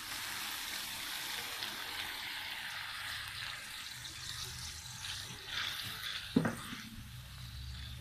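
A cup of water poured into a wok of hot frying chilli sambal, hissing and sizzling as it hits the oil and paste, easing off after about six seconds. A single sharp knock rings out just after the hiss fades.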